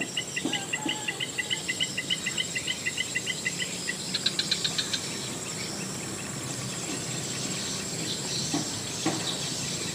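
Insects shrilling steadily at a high pitch, joined by a run of short chirping calls, about four a second, for the first four seconds. A quicker run of higher chirps follows just after.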